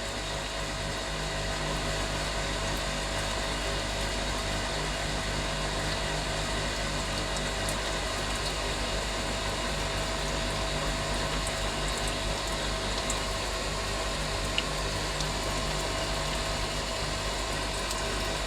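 Homemade metal lathe running steadily at low speed with its washing-machine coolant pump running, while a 13.5 mm drill bores into the workpiece: an even machine hum with a wash of coolant. There is one small click partway through.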